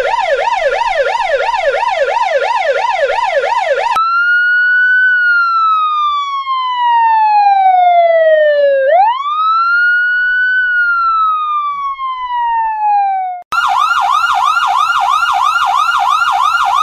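Electronic siren: a fast yelp sweeping up and down about three times a second, changing after about four seconds to a slow wail that falls, rises quickly and falls again, then switching back to the fast yelp near the end.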